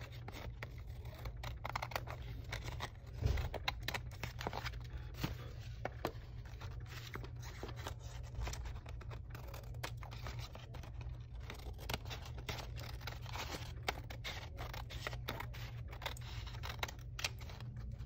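Scissors snipping through paper strips in a string of short, irregular cuts, trimming the loose ends off a paper weaving.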